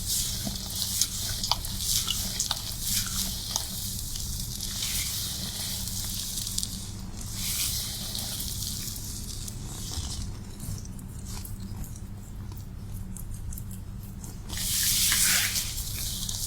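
Wet hair-washing sounds: hands working through soaked, lathered hair with wet squishing and many small crackles, over a steady low hum. A louder rush of hiss comes about fifteen seconds in.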